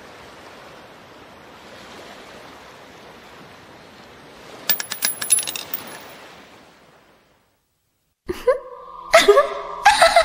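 Over a steady soft hiss, a small glassy object drops and clinks on the ground about halfway through: a quick run of bright tinkling clicks lasting about a second. After a brief silence, music starts near the end.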